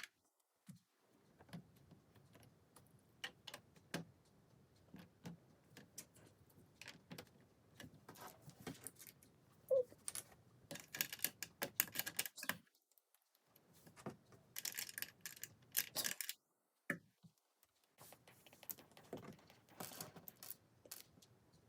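Small plastic LEGO pieces clicking and tapping as they are handled and pressed together, irregularly, with two spells of denser clattering partway through.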